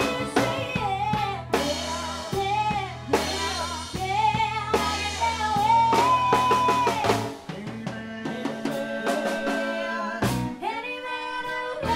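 Live country band playing through a PA: a fiddle carries a sliding melody over electric guitar, bass and a drum kit.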